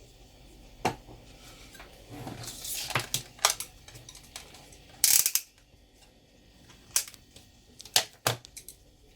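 Scattered clicks and light taps of small tools and parts being handled at a car stereo's circuit board while a jumper is soldered. There is a short hiss a little over two seconds in and a longer clatter about five seconds in.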